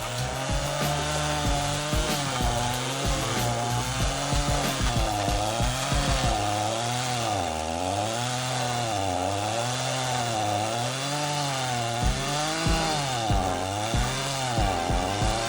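Stihl chainsaw fitted with a stump-grinding attachment running at high revs while grinding a tree stump, its engine speed dipping and recovering about once a second under load.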